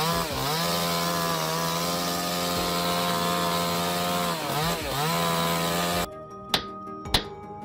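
Chainsaw running at high revs, dipping and climbing in pitch near the start and again near the end. About six seconds in it cuts off abruptly and music with sharp percussive hits takes over.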